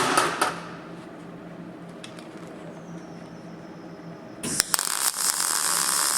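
A few light clicks at the start, then about four and a half seconds in a MIG welder strikes an arc and crackles steadily for about two seconds, laying a tack weld on thin sheet steel.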